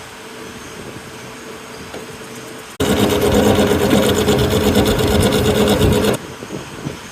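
Checknut slot milling machine running with a steady hum, then for about three seconds a much louder grinding whine with a steady tone as the milling cutter cuts, starting and stopping abruptly.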